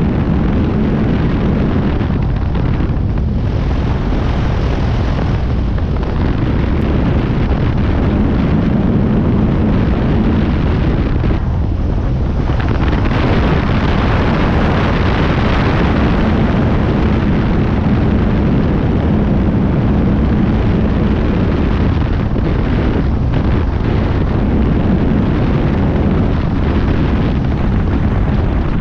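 Light high-wing propeller plane's engine and propeller droning steadily in cruise flight, with heavy wind rushing over the microphone.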